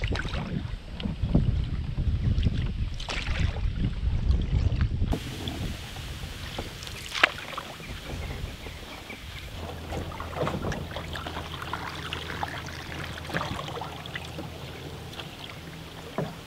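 Wind buffeting the microphone for the first five seconds, then a wooden canoe paddle dipping and splashing in the water, with a single sharp knock about seven seconds in.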